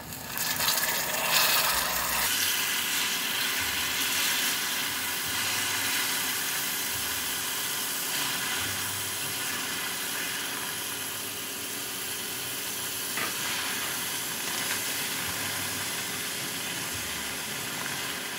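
Hot melted sugar caramel in a saucepan hissing and sizzling as cold water is poured in, loudest in the first two seconds. It then keeps up a steady sizzling boil as the caramel turns into a thin cinnamon syrup.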